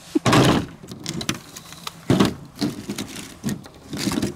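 Broken pieces of a 3D-printed plastic skull being handled and shifted on a table: a few short scraping, clattering bursts, the loudest at the very start and another about two seconds in, with small clicks between.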